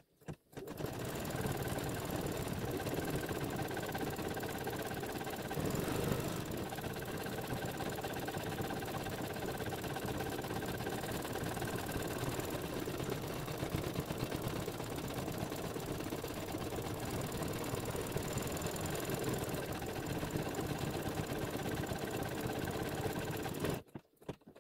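Embroidery machine stitching steadily at speed, sewing the satin-stitch edge around an appliqué piece. It starts under a second in and stops shortly before the end.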